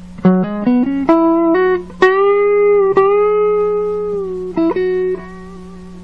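Clean electric guitar, a Stratocaster, played through an EP Booster clone pedal that is switched on, into a Peavey Classic 30 tube amp on its normal channel. A quick run of rising single notes, then one long sustained note with a slight bend, a couple of short notes, and the sound dying away near the end.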